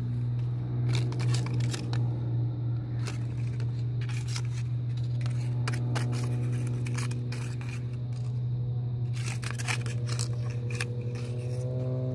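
A steady low machine-like hum runs throughout as the loudest sound. Over it come irregular rustles and scrapes of a hand moving through leafy ground cover and dry leaves under a wooden fence.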